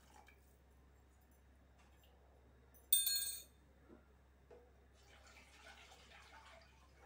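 A single sharp ringing clink of kitchenware about three seconds in, against a faint hiss of liquid in a pressure cooker just filled with water.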